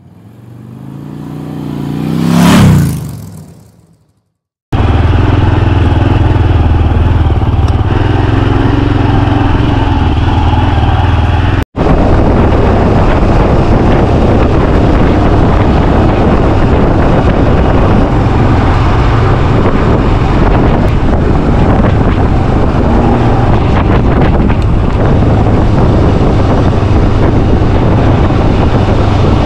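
A vehicle engine passes close by, getting louder with its pitch rising and then dropping away, and cuts off about four seconds in. Then a Royal Enfield motorcycle's engine runs steadily at road speed, heard from the rider's chest with a heavy wind rumble on the microphone and a split-second gap near twelve seconds.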